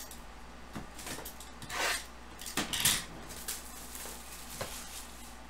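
Plastic shrink wrap being slit with a blade and torn off a sealed trading-card box: crinkling rustles, loudest about two and three seconds in, with a few small clicks and scrapes of handling.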